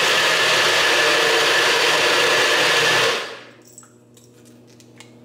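Blender running steadily as it blends a smoothie, winding down and stopping about three seconds in; a few light clicks follow.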